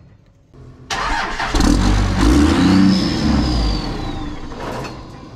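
2001 Dodge Ram's 5.9-litre Cummins inline-six turbo diesel catching about a second in and revving briefly, with a high whine that rises and falls, then fading as the engine dies. It will rev but won't keep running, which the owner later puts down to the tank being out of diesel.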